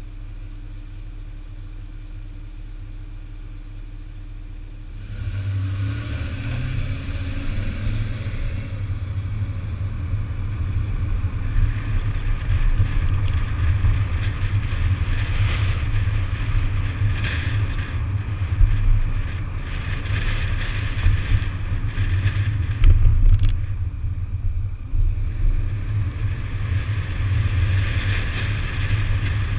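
2008 Audi A5 3.2's V6 engine running quietly and steadily for about five seconds, then the car gets louder as it drives off. Engine, tyre and road rumble carry on from close beside the front wheel.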